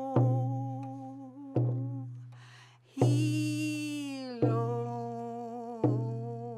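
A woman singing while she beats a hand drum with a wooden beater. The drum keeps a slow, even beat of about one stroke every one and a half seconds, five strokes in all, each ringing low and fading. Her voice holds long notes between the strokes, one sliding down a little after the middle.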